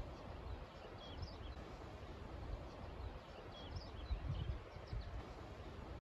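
Wind buffeting the microphone in low gusts, with small songbirds chirping high and short in a few brief clusters, about a second in and again around four seconds.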